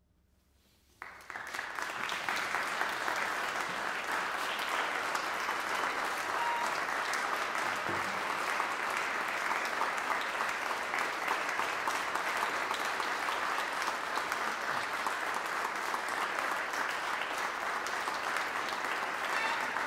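Near silence, then a concert audience breaks into applause about a second in, and the clapping holds steady and sustained.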